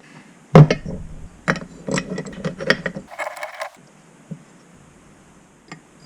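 A metal bench vise set down with a heavy clunk, then clicking and rattling as it is handled, and a short scraping hiss about three seconds in.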